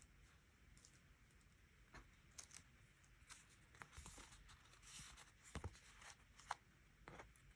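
Faint paper and stationery handling at a desk: soft rustles of paper and stickers, with scattered small taps and clicks.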